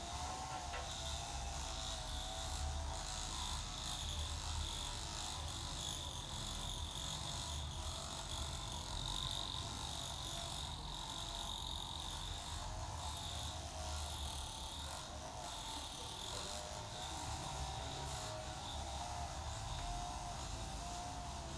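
Hands massaging a head and shoulders: soft, irregular rubbing of palms and fingers over skin and hair, over a steady background hum with a faint wavering whine.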